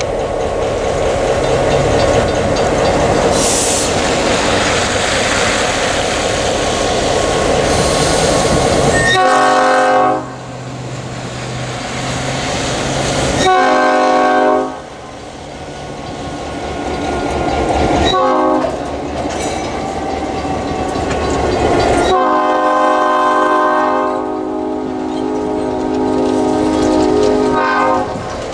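EMD GP9 diesel locomotives rumbling past close by, engines running and wheels on the rails. Then the lead unit's air horn sounds a chord in the grade-crossing pattern: a long blast, another long one, a short one, and a final long blast of about six seconds.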